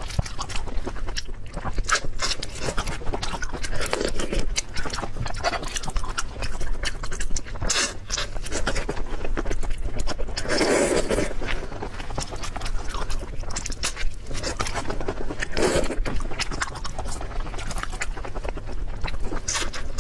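Close-miked eating of seafood: continual chewing and crunching with irregular wet clicks, louder in a few swells.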